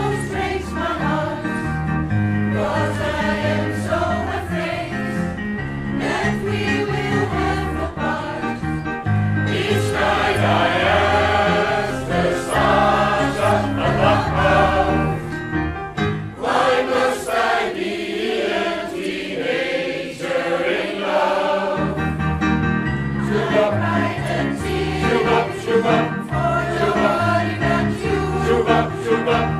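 Choir singing a Christian song. The deep bass part drops out for a few seconds past the middle, then comes back.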